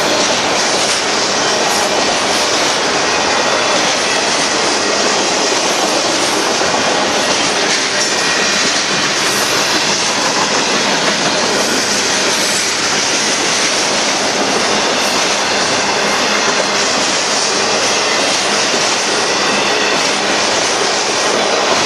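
A mixed freight train of autoracks, boxcars and covered hoppers rolling past: a loud, steady rush of steel wheels on rail and rattling cars that does not let up.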